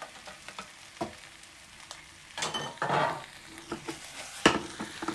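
Chicken and spice sauce sizzling in a pan as fried aubergine pieces are added and stirred in, with scattered clicks of a utensil, a rustling clatter of food going in a little over halfway through, and a sharp knock against the pan near the end.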